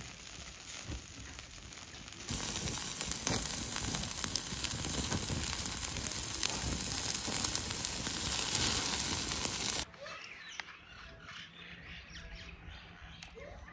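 Skewered meat sizzling over an open fire, a steady hiss with scattered crackles. It gets louder about two seconds in, then cuts to a quieter stretch with a few faint animal calls.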